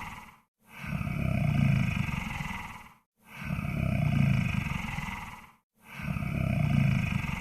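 Monster snore sound effect: deep, rough growling snore-breaths, one after another about every two and a half seconds, each swelling and then fading with a brief gap between them.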